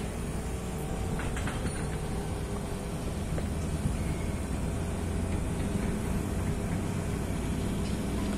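Mobile crane's diesel engine running steadily with a low, even rumble as it lowers a steel tank shell plate on its hook.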